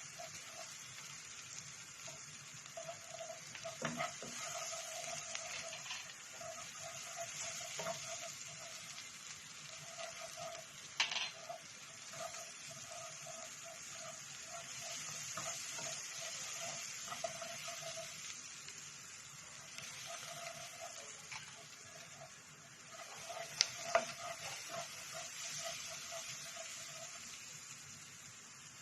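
Food sizzling in a frying pan, a steady hiss, with a few sharp clicks of a utensil against the pan.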